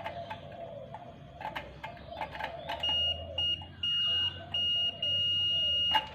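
Multimeter continuity beeper sounding a steady high tone in about five uneven beeps as the probes make and break contact, signalling continuity on the rice cooker's neutral wire. Before the beeps, light clicks of the probes being placed.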